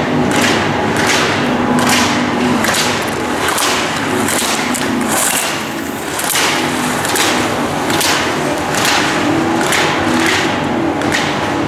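Slalom skis carving hard-packed snow, a scraping hiss on every turn at roughly two turns a second, with knocks as the plastic slalom gate poles are struck aside. A low steady hum runs underneath.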